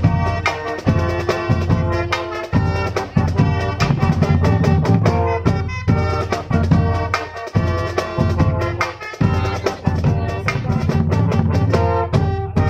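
Marching band playing live: trumpets and other brass holding chords and melody over bass drums and a snare drum beating time.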